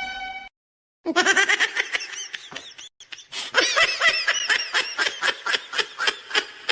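A meme laugh sound effect: a person laughing hard in rapid, repeated bursts, with a brief break partway through.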